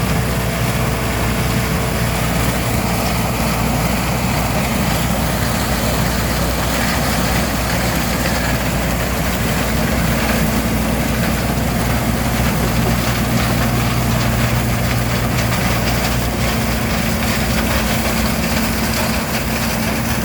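Combine harvester running steadily while harvesting corn four rows at a time: an engine hum under a dense, even mechanical noise. A low engine tone grows stronger about halfway through.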